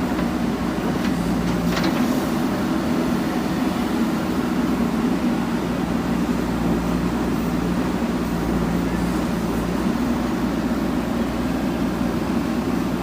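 Diesel engine of a JCB backhoe loader running steadily under work, with a few faint knocks about two seconds in.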